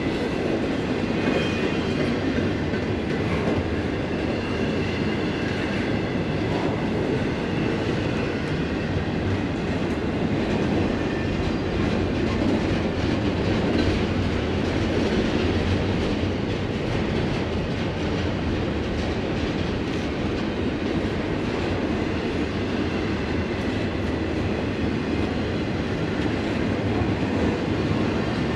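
Norfolk Southern freight train's cars rolling past, wheels clattering on the rails with a steady rumble, and a faint high wheel squeal in the first few seconds.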